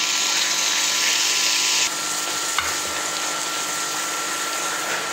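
Malai (cream) sizzling as it goes into hot caramelised sugar in a pan: a steady hiss that eases slightly about two seconds in, over a steady hum.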